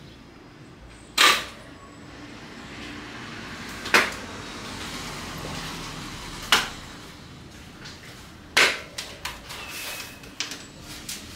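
Four sharp snaps or knocks, two to three seconds apart, then a quick run of smaller clicks near the end, from packaging and parts being handled while an electric dirt bike is unpacked.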